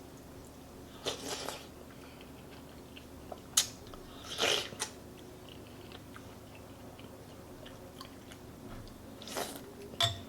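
Close-miked eating of spicy chicken noodle soup: three short, wet mouth sounds of chewing and slurping, with a few sharp clicks between them.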